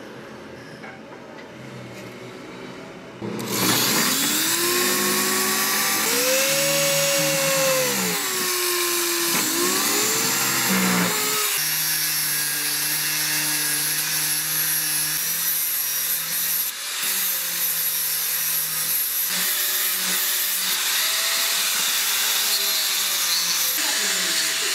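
Electric angle grinder with a sanding disc starts about three seconds in and runs against a wooden knife handle, sanding it to shape. Its whine dips and rises as the disc is pressed into the wood.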